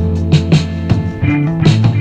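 Background music: guitar-led rock with a steady drum beat.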